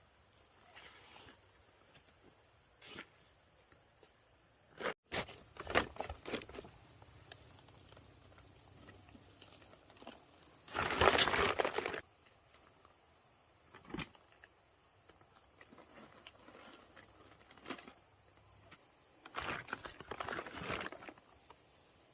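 Outdoor ambience with a steady high-pitched hum, broken by a few short rustling, handling noises; the loudest burst, about a second long, comes about eleven seconds in, and another cluster comes near the end.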